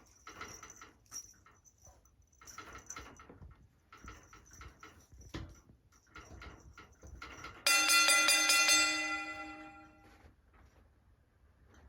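Added cartoon-style sound effects over cats play-fighting: a run of short hits and swishes, then a loud ringing struck tone about eight seconds in that dies away over two seconds.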